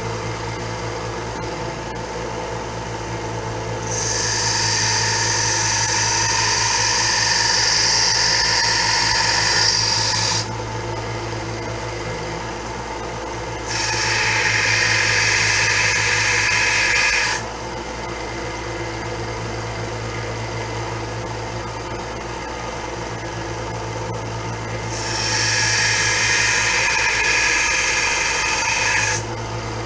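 A 1x30 belt sander runs with a steady hum while a steel knife blank cut from a saw blade is pressed to the belt three times, each a hissing grind of several seconds, grinding the blade's bevel.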